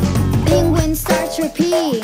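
Children's song music, with a melody line that slides up and down from about half a second in.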